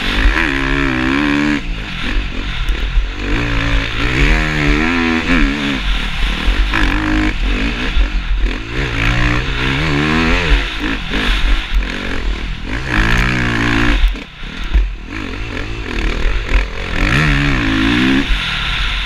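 KTM dirt bike engine revving hard and rising in pitch as the throttle opens, then backing off, about six times in turn as the bike accelerates out of corners and brakes into the next. Heavy wind rumble on the helmet-mounted microphone sits under it throughout.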